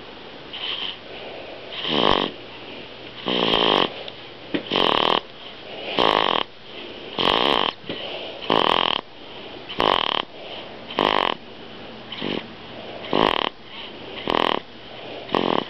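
Baby snoring, short, noisy snoring breaths repeating regularly about once a second.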